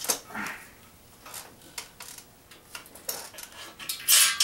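Light metallic clinks and knocks of tools and metal parts being handled, with short scrapes between them and a brief, louder hissing scrape near the end.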